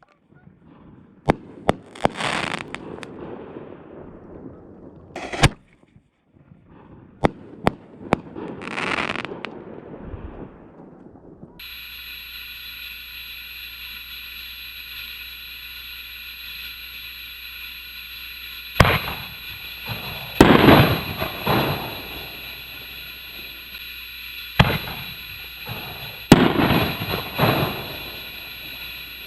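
Aerial canister shells going off: sharp bangs, each followed by a longer crackling, hissing burst. About halfway through the sound changes to a more distant take over a steady background hum, with a few more bangs and trailing crackles near the end.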